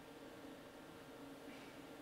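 Near silence: room tone with a faint steady hum and a brief soft rustle about one and a half seconds in.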